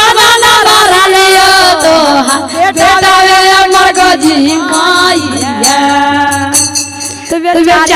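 A woman singing a Shiv Charcha devotional folk song into a microphone in long, held, gliding notes, with dholak drum strokes beneath.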